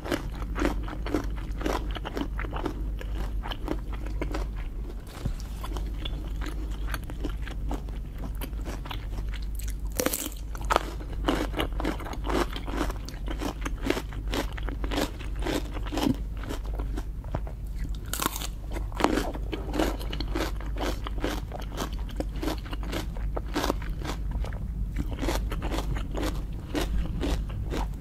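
Close-miked eating of lobster: steady biting and chewing with many irregular crunches, a few of them louder.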